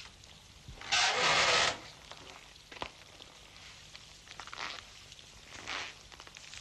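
A person moving through dry brush and branches: one loud rustling swish about a second in, then softer rustles and steps.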